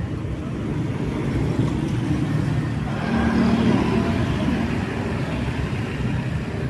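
Road traffic: a steady rumble of engines and tyres, swelling as a vehicle passes about three seconds in, then easing off.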